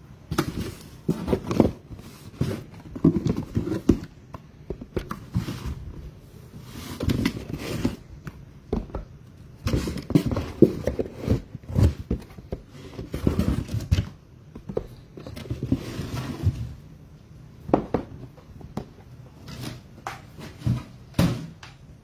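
Sealed trading-card hobby boxes being pulled out of a cardboard shipping case and set down one on another: irregular knocks, scrapes and rustles of cardboard handling.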